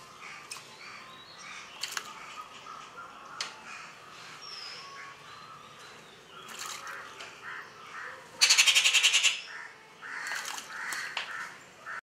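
Rufous treepie bathing in a shallow clay water bowl: a loud burst of rapid, even wing-flutter splashes lasting about a second, about two thirds of the way through, followed by softer splashing. Other birds call faintly throughout.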